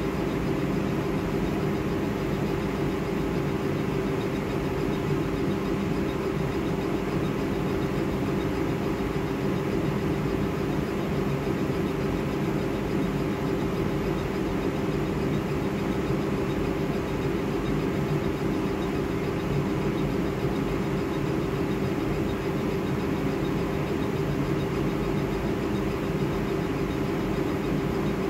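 Laser engraving machine running: a steady mechanical whir with a constant low hum and no pauses.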